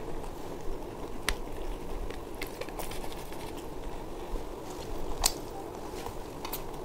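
A person eating chicken biryani: chewing with soft mouth smacks and a few sharp clicks, over a steady low background hum.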